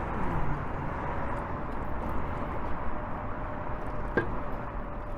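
Town street ambience: a steady hum of traffic and general outdoor noise, with a single sharp click about four seconds in.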